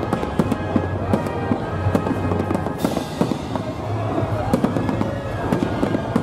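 Aerial fireworks shells bursting in quick succession, many sharp bangs and crackles with a brief hiss a little before the middle, over music and crowd voices.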